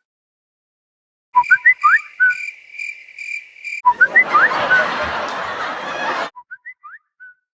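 WhatsApp "Whistle" notification tone, a quick run of rising whistle chirps, played three times with different effects. The first comes about a second and a half in, over a steady high tone with a pulsing beat. The second, about four seconds in, is buried in loud hissing noise. The third is a faint, quiet version near the end.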